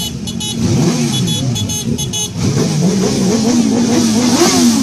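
Several motorcycle engines revving over and over, their pitch rising and falling about once a second and overlapping.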